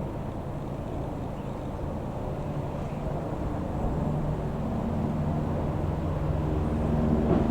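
Aerospatiale AS355 F2 Ecureuil 2 twin-turbine helicopter running: a steady low rumble with a pitched hum that grows louder over the last few seconds.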